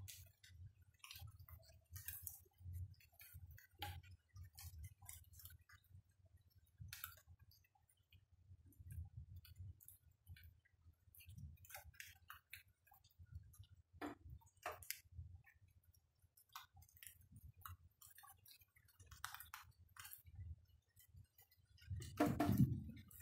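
Raindrops dripping, an irregular scatter of light ticks and taps, over a faint low rumble. Near the end a louder, lower sound swells briefly.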